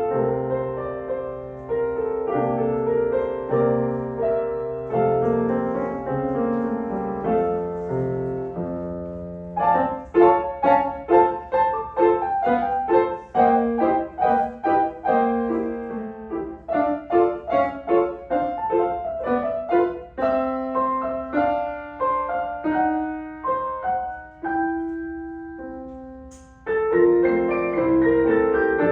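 Solo piano playing a children's piece. It opens with a smooth, connected passage, switches to short detached notes about ten seconds in, and after a brief pause near the end resumes with a louder, fuller passage.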